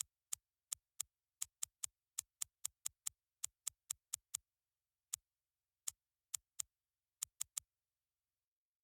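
A run of about two dozen sharp electronic clicks at an uneven, tapping pace, up to about four a second, each with a short falling low thump under the snap. There is no background noise between the clicks. The clicks end with three quick ones shortly before the end.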